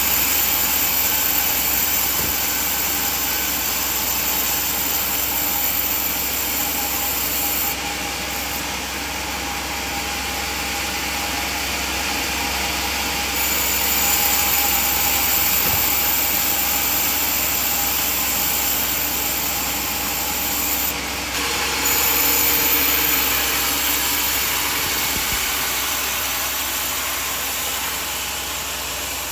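Sawmill band saw running steadily while cutting coconut wood, a motor hum under a noisy blade sound. A high whine drops out about eight seconds in, comes back about five seconds later, and cuts out briefly again past the twenty-second mark.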